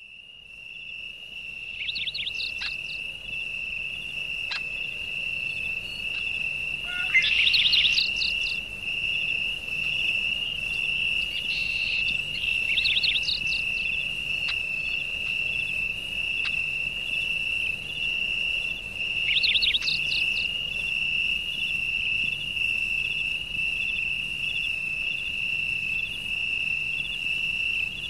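Insect trilling steadily on one high pitch without a break, fading in over the first couple of seconds. Short clusters of higher chirps cut in about 2, 7, 13 and 20 seconds in.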